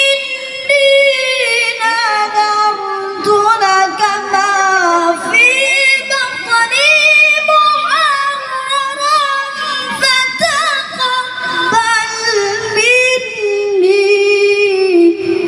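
A child's voice reciting the Quran in melodic tilawah style, with long held notes that wind in ornamented runs and step down in pitch.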